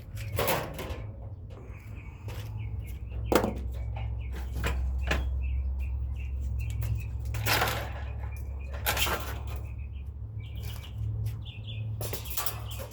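Irregular clicks and knocks of metal parts being handled and unfastened as the capacitor and contactor come off a small air conditioner, over a steady low hum, with birds chirping in the background.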